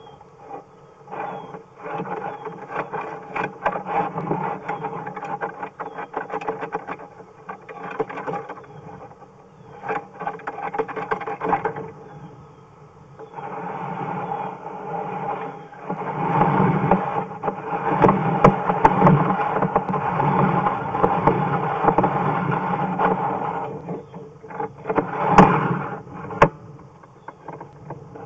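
Sewer inspection camera head and its push cable scraping and rattling through a drain pipe as the cable is fed in and then pulled back, in uneven bursts of rough noise with a few sharp knocks near the end.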